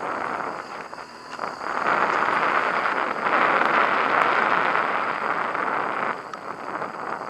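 BMW HP2 Enduro boxer-twin motorcycle under way on a dirt track: a loud rushing engine and riding noise that swells about two seconds in and eases back near the end.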